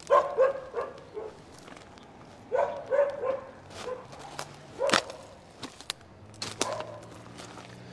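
A dog barking in short runs: several barks at the start, another run about two and a half seconds in, a single sharp bark about five seconds in, and a few more near the end.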